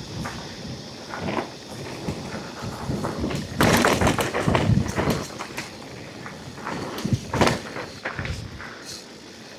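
Mountain bike ridden over a dirt trail: tyres on dirt with irregular thuds and rattles as the bike hits bumps, loudest about four seconds in and again briefly about seven and a half seconds in.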